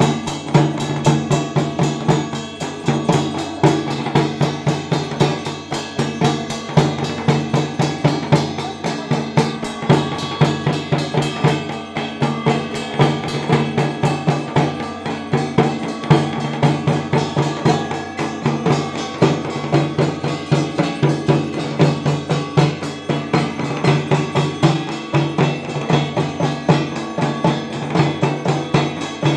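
Dhak drums beaten together in a fast, unbroken rhythm, with a steady ringing behind the strokes.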